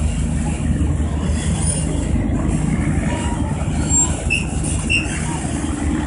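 Chao Phraya Express Boat's engine running with a steady low drone, with a couple of short high squeaks about four and five seconds in.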